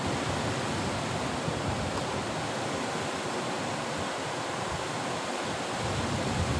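Sea surf breaking and washing into a rocky cove: a steady, even rush of waves.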